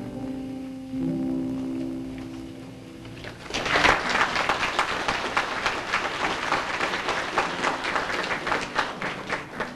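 Closing notes of a song on acoustic guitar, held and ringing, then about three and a half seconds in an audience breaks into applause that carries on until near the end and then dies away.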